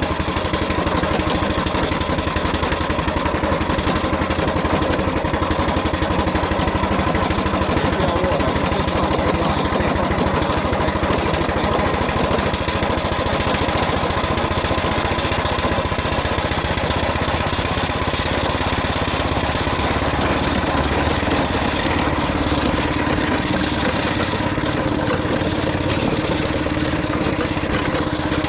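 Miniature steam traction engine running as it is driven, with a fast, steady mechanical beat.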